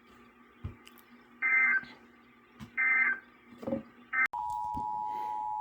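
Emergency Alert System end-of-message signal: three short warbling digital data bursts about a second and a half apart. About four seconds in, the steady two-tone EAS attention signal starts abruptly.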